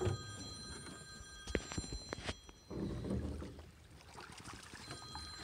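A steady high ringing of several pitches at once stops about two and a half seconds in and comes back near the end, over water sloshing as a hoop net holding fish is lifted from the river.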